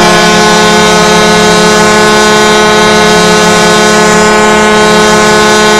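Arizona Coyotes ice hockey goal horn sounding one long, steady, unbroken blast, the arena's signal of a Coyotes goal.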